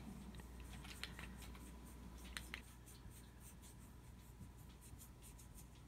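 Faint rubbing of a sponge-tipped applicator buffing chrome mirror powder onto a gel-polished nail: a few light clicks, then a quick run of scratchy strokes through the second half.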